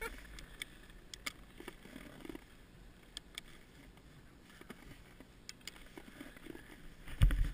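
Snowboard binding ratchet straps being done up by hand: a scattering of short, sharp plastic clicks. Near the end a loud low rumble comes in.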